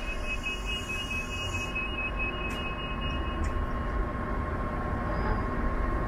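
Sheffield Supertram tram standing at the platform, giving a steady electrical whine over a low rumble. A pair of higher steady tones cuts off about three and a half seconds in.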